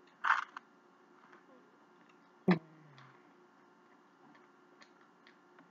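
Quiet eating sounds: a brief mouth noise just after a forkful goes in, then a single sharp knock about two and a half seconds in, and faint small clicks of chewing and handling the utensil.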